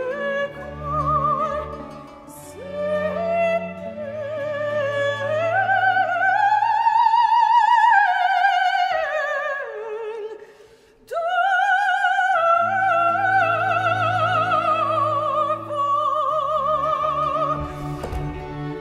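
A soprano sings an opera aria with vibrato over a string orchestra. Her line climbs to a long high held note, then falls as the orchestra drops out. It stops briefly about ten seconds in, then comes back in with the strings.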